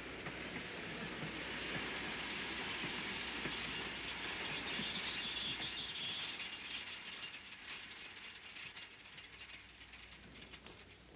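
Steam train coming to a halt: rumbling with irregular knocks, a hiss of steam that swells a couple of seconds in and dies away, then a run of small clicks and rattles.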